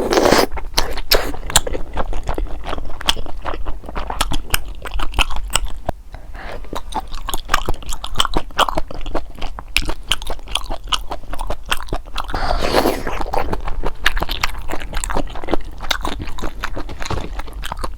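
Close-miked biting and chewing of boneless chicken feet in broth: a dense, irregular run of wet, clicking chews, with a short pause about six seconds in.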